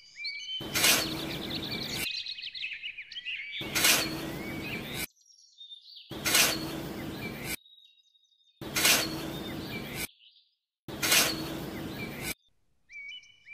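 Birds chirping, cut into about every two and a half seconds by short bursts of louder noise. Each burst opens with a sharp hit, carries a steady low hum and stops abruptly.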